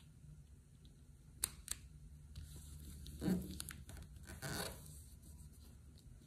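Clear acetate sheet and paper card pieces being handled and pressed down on a craft mat: two light clicks, then two longer rustling scrapes about a second apart.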